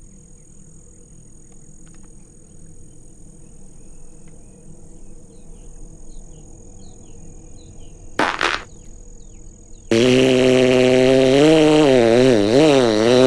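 Faint outdoor ambience with a steady high insect trill and a few short chirps, then a brief loud burst about eight seconds in. About ten seconds in, a loud, low, horn-like drone starts abruptly and wavers up and down in pitch: one of the reported strange sounds from the sky.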